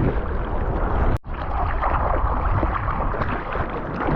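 Strong wind blowing on the microphone over the rush of rough surf. The sound cuts out briefly about a second in.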